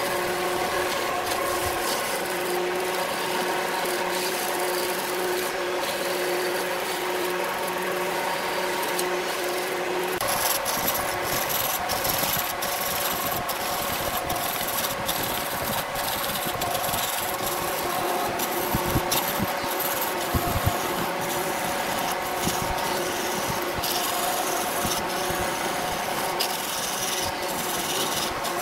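Wood lathe running with a gouge shaving the spinning wooden blank: a rough, steady scraping hiss of the cut over the lathe's motor hum. About ten seconds in the sound changes, with more low rumble.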